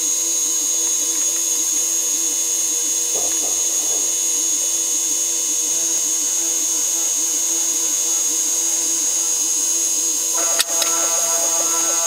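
CNC mini mill spindle cutting a hole in metal plate with a 1/8-inch end mill, played back sped up: a steady high whine over a cutting tone that wavers in a regular cycle, a couple of times a second, as the tool circles. About ten and a half seconds in, a click, and the cutting tone changes.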